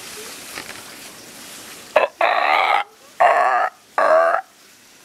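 Three loud animal calls, each about half a second long and about a second apart, with a wavering pitch.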